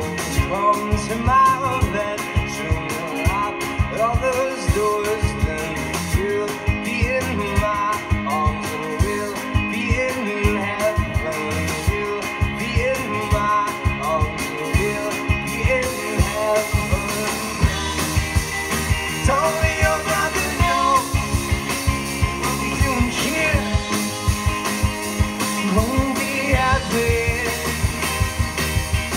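Live rock band playing: two electric guitars, bass guitar and a drum kit.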